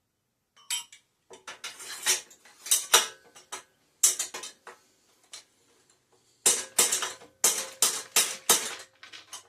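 Sharp metallic clinks and taps with a brief ring, in two quick clusters of strikes, as metal tools work at the bicycle's headset to get a headset cup out.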